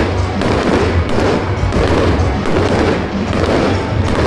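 Fireworks bursting every second or so over loud music with a heavy bass line.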